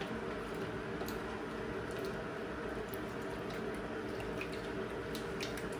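Cold water running steadily from a kitchen tap into a container, with a faint steady hum and a few small clicks.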